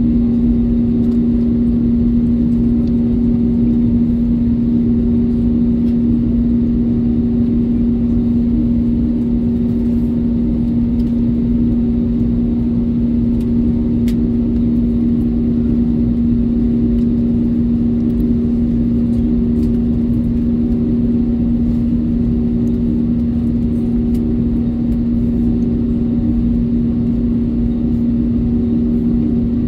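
Airbus A320neo cabin noise while taxiing, heard from a seat over the wing: the jet engines at idle give a steady hum, one strong constant tone over a low rumble.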